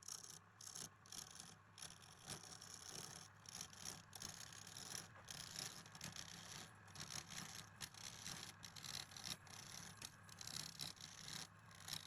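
Wood lathe motor running with a steady hum while a turning tool scrapes and cuts the spinning wood in uneven strokes.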